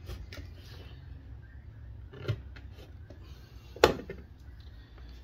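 Leather being cut and handled on a workbench: scattered light clicks and scrapes over a low steady hum, with one sharp tap about four seconds in.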